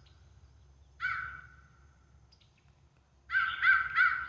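Electronic crow caller playing recorded crow caws at high volume: a single caw about a second in, then a quick run of caws, about three a second, starting near the end.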